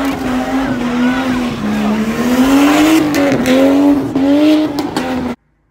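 Car engine held at high revs while the car spins, its pitch wavering up and down, with tire squeal over it; the sound cuts off suddenly near the end.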